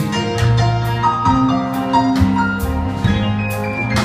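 Live band playing an instrumental passage between vocal lines: piano chords over drums, with regular cymbal strikes keeping the beat.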